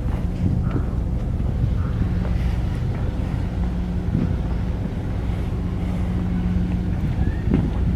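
Steady low engine drone with a constant hum and a few faint knocks, more of them near the end.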